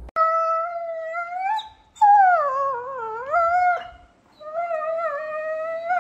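A dog howling: three long, wavering howls in a row. The first rises at its end, the second dips low in pitch and then climbs back up, and the third holds fairly level.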